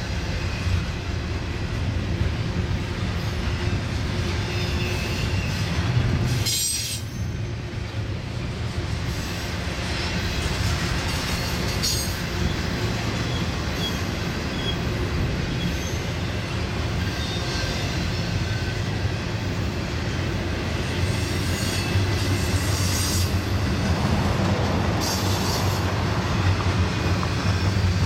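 Double-stack intermodal container train's well cars rolling past: a steady rumble of steel wheels on the rails, with a few brief high squeals.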